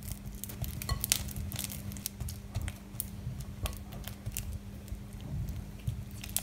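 Silicone spatula mashing and scraping room-temperature butter against a glass mixing bowl: irregular soft squishes, scrapes and small clicks as the butter is creamed.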